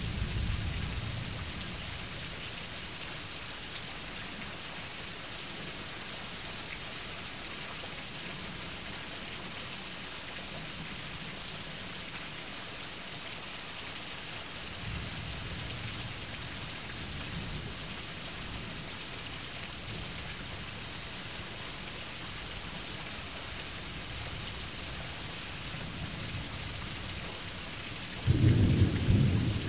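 Steady rain falling, with low thunder rumbling faintly near the start and again about halfway through, then a loud thunderclap about 28 seconds in, the loudest sound here.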